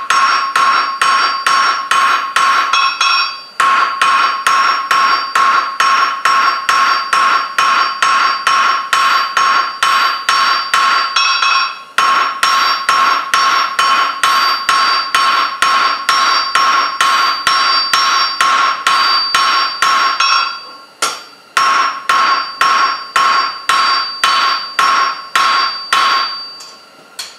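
Blacksmith's hand hammer striking hot 3/8-inch square mild steel over the anvil's horn, drawing out a leaf's stem: loud, quick, even blows, about four a second, each leaving the anvil ringing. The hammering comes in runs with short breaks between them.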